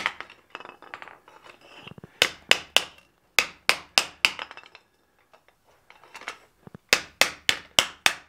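Ball-peen hammer striking red-hot sheet steel on an anvil, flattening out wrinkles along the edge of a fold-formed piece. The sharp ringing blows come in runs of three to five at about three a second, with short pauses between runs.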